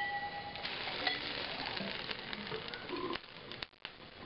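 Water splashing and dripping, with a few light clicks, as an aluminum canister is lifted out of a beaker of cold water and lowered into a beaker of hot water. The splashing stops about three seconds in.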